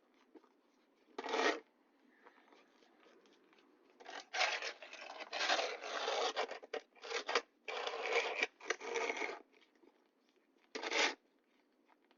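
Snow shovel scraping and pushing snow across pavement in a run of short, uneven strokes, bunched between about four and nine seconds in, with one more stroke near the start and one near the end.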